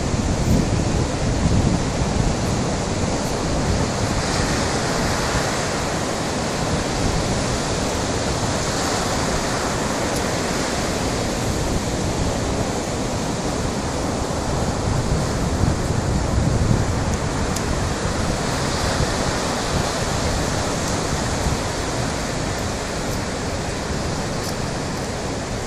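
Sea waves washing onto the shore: a steady rush of surf that swells and eases every few seconds.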